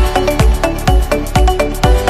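Electronic dance music with a steady kick-drum beat, a little over two beats a second.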